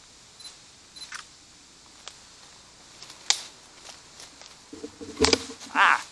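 Twigs and branches cracking and scraping as a person pushes through brush. There are a few scattered sharp snaps, the loudest cluster about five seconds in, then a startled shout as limbs catch him.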